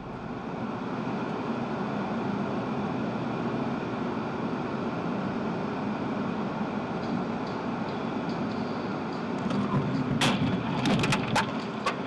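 Steady road and engine noise of a car driving on a motorway, heard inside the cabin. About ten seconds in comes a quick run of sharp bangs and clatter as vehicles collide just ahead in fog and debris flies.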